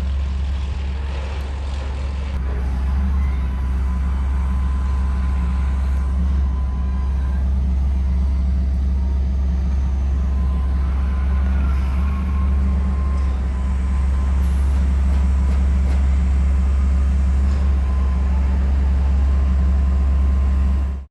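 Steady low rumble of a motor vehicle running, which cuts off suddenly at the end.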